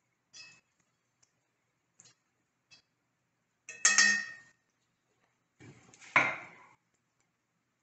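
Metal fork scraping and tapping in a cast-iron skillet while spreading crumb topping over apples: a few light clicks, then two loud clinks about four and six seconds in, each ringing briefly.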